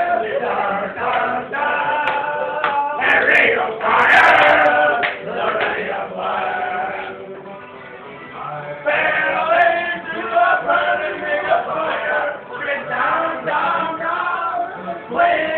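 A group of men and women singing along loudly together, with men's voices the most prominent. The singing dips into a lull about seven seconds in, then picks up loudly again about two seconds later.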